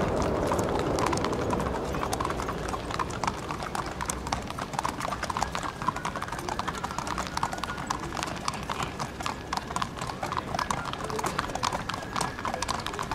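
Hooves of several racehorses walking, an irregular, overlapping clatter of many hoofbeats as the horses are led along.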